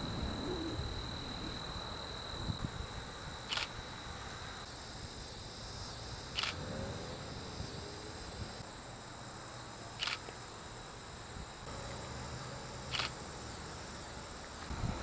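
Crickets and other insects chirring steadily in a high, even drone. A camera shutter clicks sharply about every three seconds, four times, over a low rumble.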